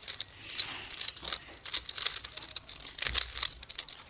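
Rubik's Cube being twisted by hand: a rapid, irregular run of plastic clicks and rattles as the layers are turned.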